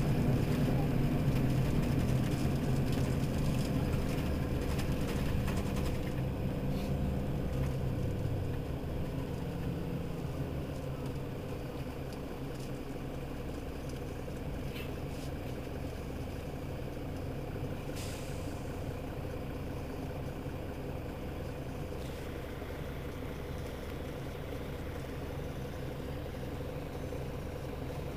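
Mercedes-Benz Citaro city bus idling while stationary, its engine running steadily. The sound is louder over the first ten seconds or so and then settles to a lower, even idle, with one short click about two-thirds of the way through.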